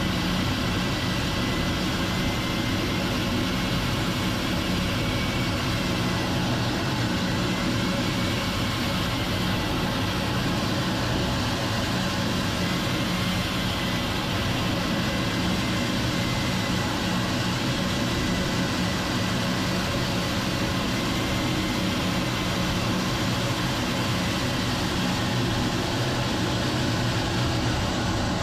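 Jet aircraft engine running at a steady power: an even, unbroken low rumble with a faint wavering whine above it.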